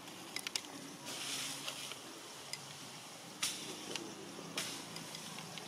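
Quiet outdoor background with a soft hissing rustle and a few scattered sharp clicks, two of them louder, in the second half.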